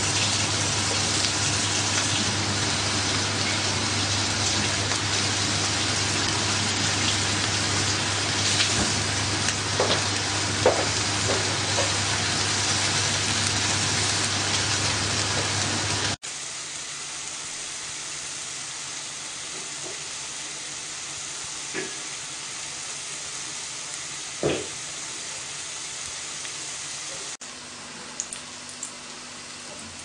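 Food sizzling in hot oil in a frying pan: seasoned chicken breasts frying with a dense, steady sizzle, which drops abruptly about halfway through to the quieter sizzle of fritters shallow-frying in oil, with a few sharp pops.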